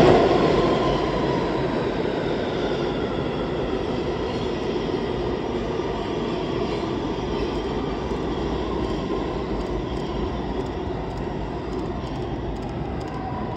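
New York City Subway R211 train running through a station without stopping: a steady rumble of wheels on rail that is loudest at the start and slowly fades as the train draws away into the tunnel.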